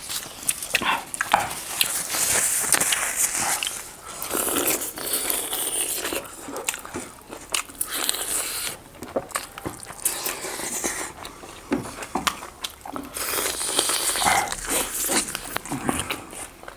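Close-up eating sounds: biting and chewing mutton and chicken lollipops, with many small crunches and clicks.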